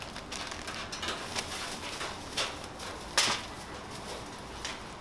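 Paper wrappers, a paper bag and plastic bags crinkling and rustling as takeaway food is packed, in a string of short crackles with the sharpest one about three seconds in.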